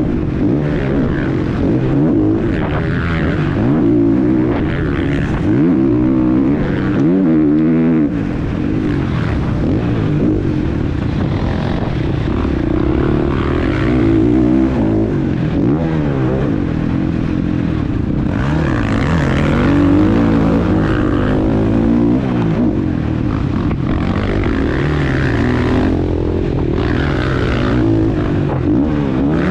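Husqvarna FC 450's single-cylinder four-stroke engine revving hard and dropping back over and over as the motocross bike is ridden around the track, heard from a camera mounted on the bike or rider.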